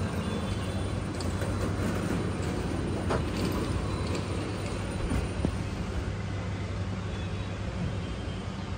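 Steady street-traffic noise with a constant low engine hum, a few faint clicks over it.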